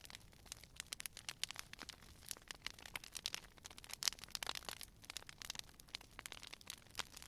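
Wood fire crackling: dense, irregular pops and snaps, with a louder snap about four seconds in.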